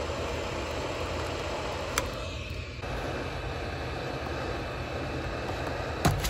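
Hot air gun running, its blower giving a steady rushing hiss. There is a sharp click about two seconds in and two louder clicks near the end.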